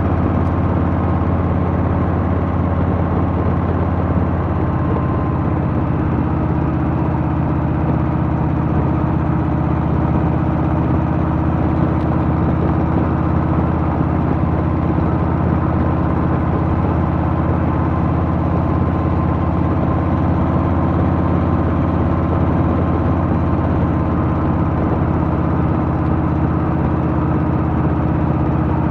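Harley-Davidson Softail's Milwaukee-Eight V-twin engine running steadily at an even pitch, with no revving or gear changes.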